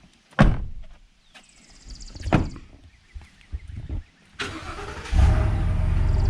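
A couple of thumps, then a truck engine is cranked about four seconds in, catches and settles into a steady idle.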